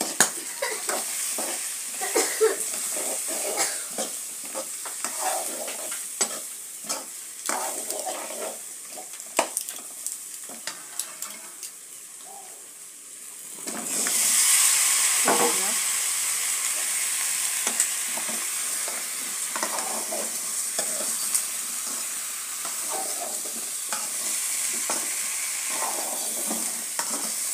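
Chicken curry frying and sizzling in a metal karahi on a gas stove, while a metal spoon stirs and scrapes the pan with frequent clicks and knocks. About halfway through, the sizzle turns suddenly louder as more ingredients are tipped in from a bowl, then settles into a steady sizzle with occasional stirring.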